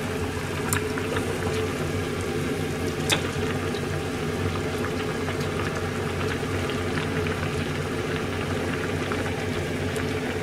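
Pork and vegetable soup boiling hard in a hammered aluminium pan on a gas burner, a steady bubbling with a couple of sharp clicks in the first few seconds.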